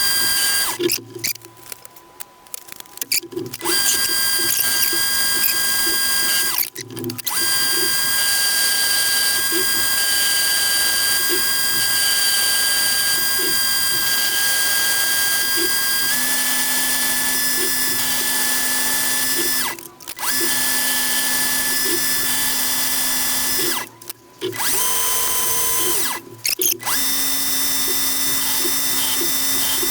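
Metal lathe running while turning a small steel part down in diameter, a steady motor and gear whine. It stops briefly four or five times and starts again, and the whine steps slightly higher about halfway through.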